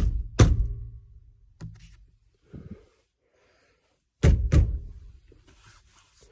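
Heavy thuds of a Jeep Wrangler steering wheel being banged on to knock it off the steering column shaft without a puller: two pairs of hard blows, one at the start and one about four seconds in, with a few lighter knocks between. The wheel is stuck fast on the shaft and does not come loose.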